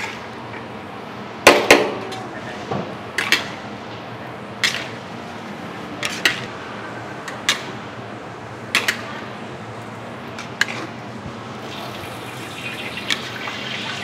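Metal spatulas clanking and scraping against a large aluminium wok while a big batch of fried rice is stirred: irregular sharp clanks a second or two apart over a steady background hiss.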